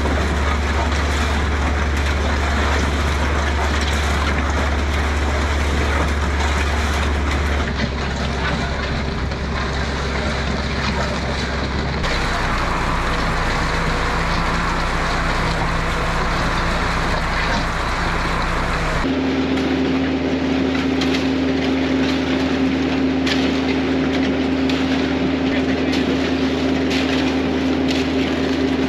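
Heavy machinery engines running steadily during a concrete pour, the sound changing abruptly about 8, 12 and 19 seconds in; from about 19 seconds on a steady higher-pitched hum takes over.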